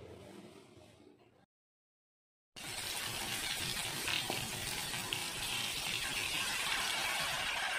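Hot oil sizzling steadily as chopped garlic, tomato and pepper fry in a pan, with a few faint clicks. The sizzle starts suddenly about two and a half seconds in, after a moment of dead silence.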